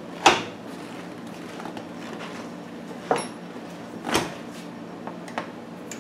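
Hard plastic side cover panel of a portable inverter generator being fitted back on and screwed down: a few sharp knocks and clicks, the loudest just after the start and more around three and four seconds in.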